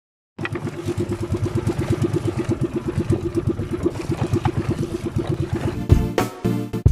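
Small engine of a motorized outrigger fishing boat running steadily with a rapid, even putting. Just before the end, music with drum hits cuts in.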